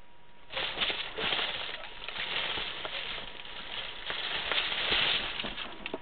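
Crinkly crackle-tube cat tunnel rustling and crackling as a cat scrambles into it. The crackling starts about half a second in, is dense and full of sharp snaps, and ends with a few last sharp crackles near the end.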